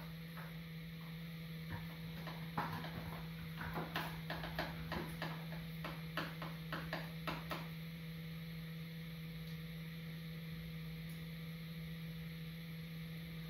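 Light metallic clicks and taps, about a dozen over five or six seconds, as a motorcycle exhaust header pipe is fitted against the cylinder head and its nuts are started by hand on the studs. A steady low hum sits underneath and continues alone once the clicking stops.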